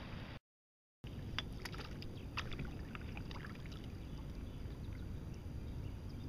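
Water splashing in short, quick spatters as a hooked fish thrashes at the side of a canoe while the angler reaches down to land it, over a steady low rumble. The sound cuts out completely for about half a second near the start.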